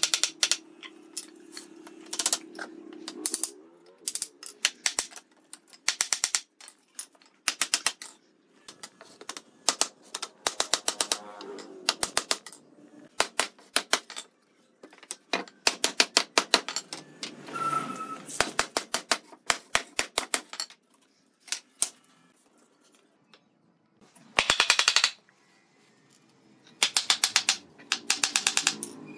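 Hammer knocking on a wooden frame rail to drive the slatted panel together. The blows come in quick bursts of several taps with pauses between.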